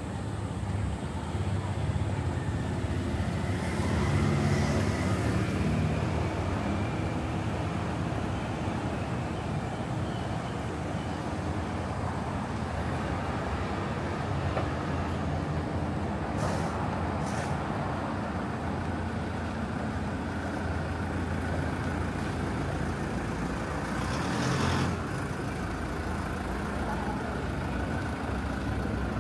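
City street traffic: cars, trucks and buses passing, with a steady low rumble of engines and tyres that swells a few seconds in and again near the end. Two short high hisses come about halfway through.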